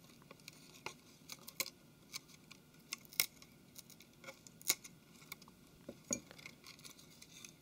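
Scattered small, sharp clicks and light scrapes of a small bladed screwdriver tip prying against a Galaxy Note 3's metal mid-frame and the plastic home key switch as the flex is lifted away. The clearest clicks come a little after three seconds and again near five seconds.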